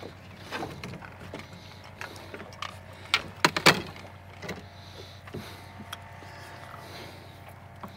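Sharp knocks and clatter of fishing gear being handled in a boat while a catfish is played in, loudest in a quick run of knocks about three seconds in. A steady low hum sits underneath.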